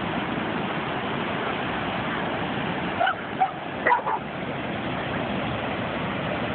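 Dogs barking and yipping: a few short, sharp barks about three to four seconds in, over a steady background hiss.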